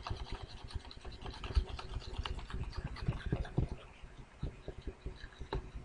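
A stylus drawing quick, short hatching strokes on a tablet surface: an irregular run of taps and scratches with soft knocks. It thins out after about four seconds.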